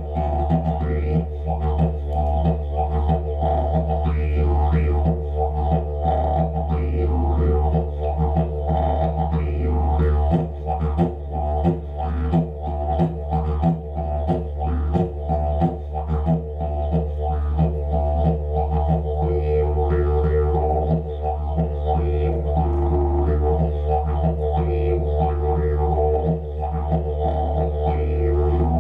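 Didgeridoo played solo: an unbroken low drone with a fast rhythmic pulse of breath and voice accents riding on it.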